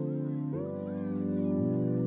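Background music of held keyboard chords, changing to a new chord about half a second in.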